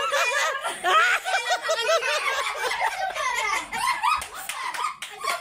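Children and adults laughing and calling out excitedly at once, many high-pitched voices overlapping, cheering on a tug-of-war game.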